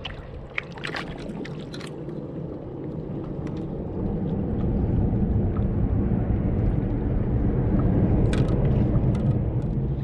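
Wind buffeting the microphone and water washing against a kayak, a low rumble that grows louder about four seconds in, with a few sharp clicks and splashes.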